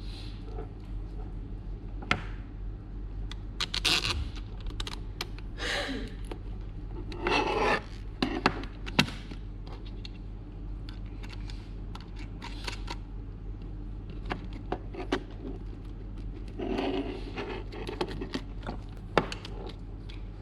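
Handling noises from work on a small hand-held tool: a series of scrapes and sharp clicks at irregular intervals over a steady low hum.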